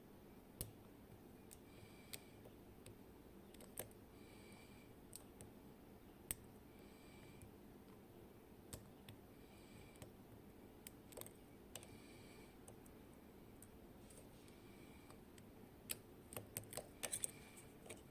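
Sparse, faint metallic clicks of a lock pick and tension tool working the pins inside a Kaba Gemini Plus high-security lock, with a quick run of clicks near the end.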